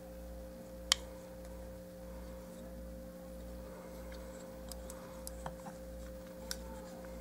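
Plastic parts and joints of a Transformers Beast Wars Airhammer figure clicking as it is handled and transformed: one sharp click about a second in, then a few fainter clicks, over a steady low hum.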